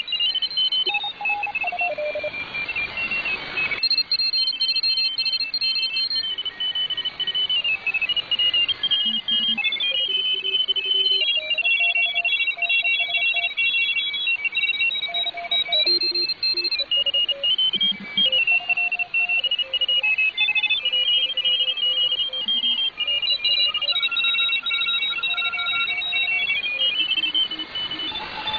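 Amateur radio signals on the 160-metre band heard through a shortwave receiver (WebSDR): several overlapping beeping tones that hop in pitch and compete over a hiss of static. A swell of static in the first four seconds cuts off suddenly.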